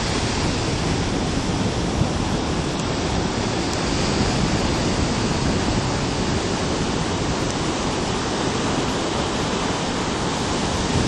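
Steady rush of ocean surf: waves from a large hurricane swell breaking and whitewater washing up the beach.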